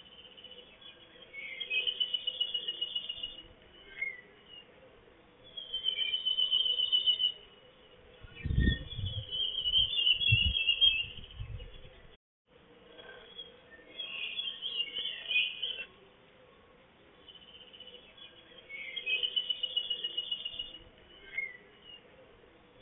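A songbird singing short, fast trilled phrases, repeated about every four seconds. A few dull low thumps come a little over a third of the way in.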